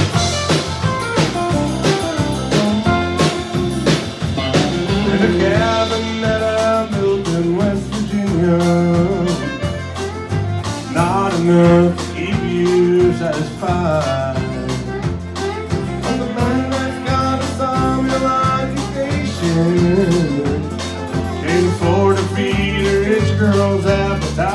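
Live country band playing: fiddle and acoustic guitar over drums with a steady beat.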